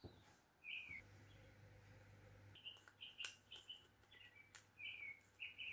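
Small birds chirping in short repeated calls, some dipping slightly in pitch, with a couple of light clicks.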